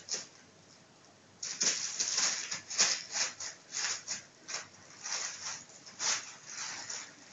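Plastic bag crinkling and rustling in quick, irregular bursts as a kitten plays with it, starting about a second and a half in.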